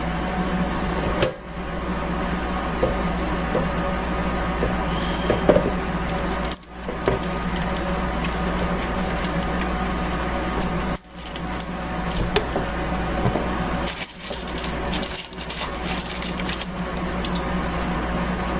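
Food dehydrator running with a steady electric hum as it heats up to temperature. Scattered light clicks and knocks sound over it. The sound drops out suddenly for a moment several times.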